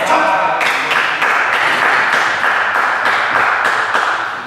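Spectators clapping and cheering after a table-tennis point: a shout at the start, then a few seconds of dense applause that dies away near the end.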